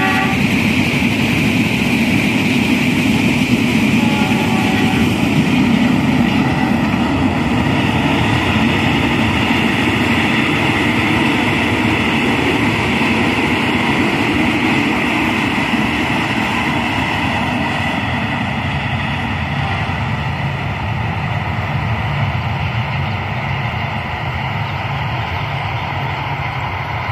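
Trains running on the line across open fields: the rumble of a diesel-hauled passenger train going away, then a red-and-white electric commuter train passing at a distance. The noise eases off over the last ten seconds, and a faint horn sounds about four seconds in.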